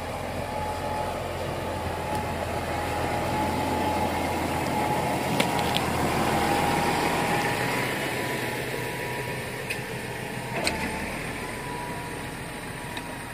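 Farm vehicle engine running steadily, with a thin steady whine over it, getting a little louder in the middle, and a few sharp knocks near the middle and end.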